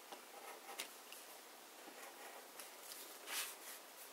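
Craft knife blade cutting slits into paper-covered chipboard on a cutting mat: faint scratchy strokes with a few light clicks, the loudest a brief scrape about three seconds in.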